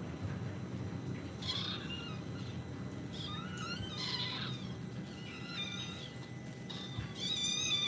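Newborn Maltese puppies squeaking and whimpering: a string of short, thin, high cries that rise and fall in pitch, loudest near the end, over a steady low hum.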